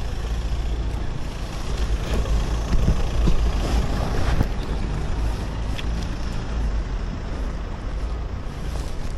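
Road traffic with a heavy vehicle's engine rumbling low and steady, swelling louder a couple of seconds in, then easing off.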